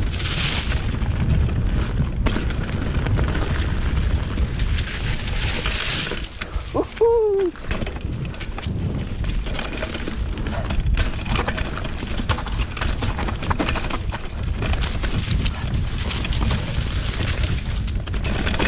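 Wind buffeting the camera microphone while a 2020 Specialized Pitch mountain bike rolls fast downhill over leaves, roots and dirt, with a steady rumble and many small rattles and knocks from the bike. About seven seconds in there is a short hooting sound that rises and falls.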